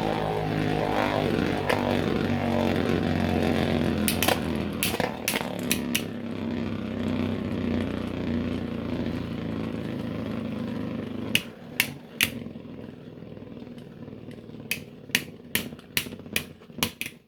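3D-printed Beyblade spinning tops whirring and grinding against each other in a battle stadium, with a few sharp clashes about four to six seconds in. About eleven seconds in the steady whirr gives way to scattered sharp plastic clicks.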